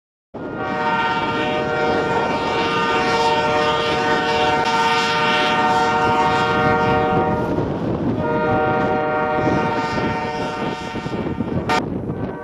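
Diesel locomotive air horn sounding a chord of several tones in a long blast, a brief gap, then a second long blast, over the rumble of the passing train.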